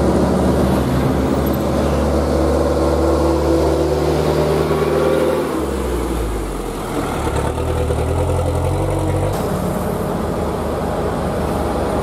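Heavy diesel truck engines running as trucks pass on the road. The engine note shifts to a lower pitch about halfway through and changes again a few seconds later.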